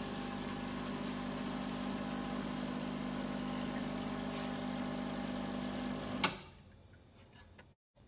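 Espresso machine's water pump humming steadily as it flushes water through the machine to rinse out descaling solution. It stops with a sharp click about six seconds in.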